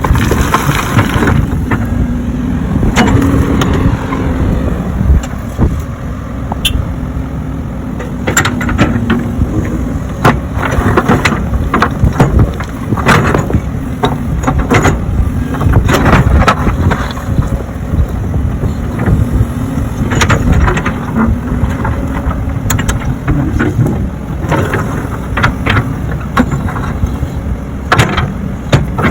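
Diesel engine of a digging machine (backhoe or excavator) running while filling in holes, with a steady low rumble and frequent knocks and clunks throughout.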